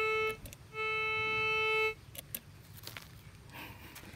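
Metal detector giving a steady, buzzy single-pitch tone twice, about a second each, as its search coil is swept over the hole: the signal of a buried metal target. A few sharp clicks follow in the middle.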